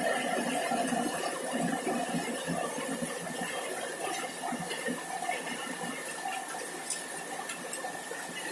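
Rain falling on a corrugated zinc roof: a steady patter and hiss with scattered small ticks, easing off slightly, over a thin steady high tone.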